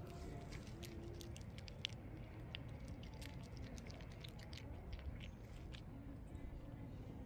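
Cat eating dry kibble: irregular sharp crunches as the cat chews the pellets, over a steady low background rumble.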